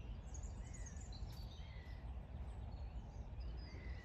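Small birds chirping and singing, many short calls scattered throughout, over a low steady background rumble.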